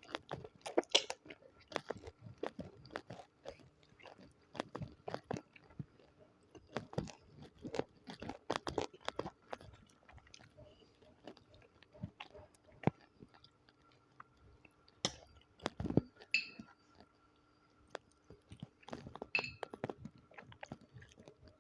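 Close-miked chewing and biting of spicy chicken feet (ceker mercon): a run of irregular small clicks and crunches, with a few louder bites late on.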